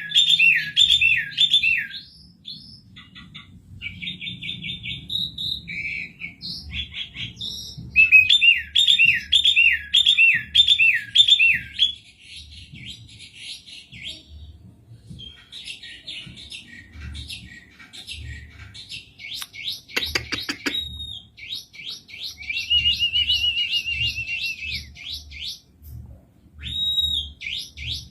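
Asian pied starling singing: runs of repeated down-slurred whistles alternating with fast chattering phrases and a trilled note, with a sharp click about twenty seconds in.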